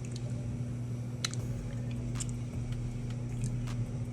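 A steady low hum with a few short, faint clicks and soft wet sounds of handling and eating a boiled balut egg.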